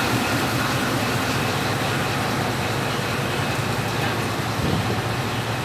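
Diesel locomotive engine running steadily, a continuous low drone.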